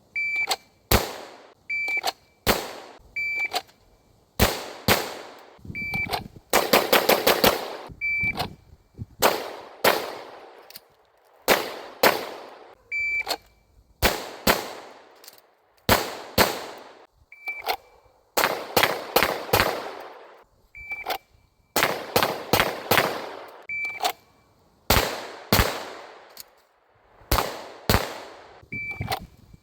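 Glock pistol fired in repeated strings of a few shots each, many strings led by a short, high beep from a shot timer. About six and a half seconds in comes a fast run of about a dozen shots.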